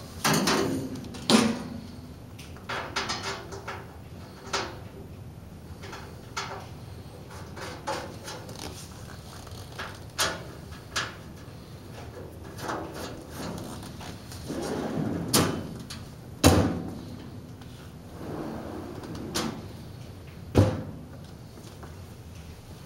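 Painted steel cabinet panels and doors being worked by hand: an irregular series of metal clunks, clicks and short scrapes as parts slide, fold and latch. The sharpest knocks come about a second in, about two-thirds of the way through and shortly before the end.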